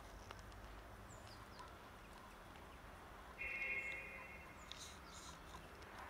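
Cats crunching dry kibble, heard as faint scattered clicks over a quiet background, with a brief high-pitched call about three and a half seconds in.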